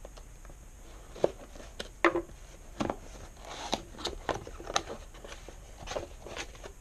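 A small cardboard box being opened by hand: fingernails picking at the seal, then the end flap pulled open. Irregular clicks, crinkles and taps of the cardboard.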